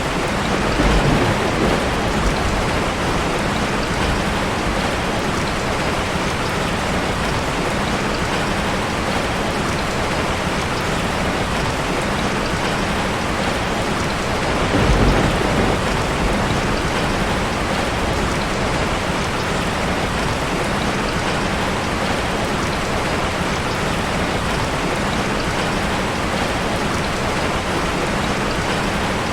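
Steady, dense rainfall, with low rumbles of thunder swelling about a second in and again about halfway through.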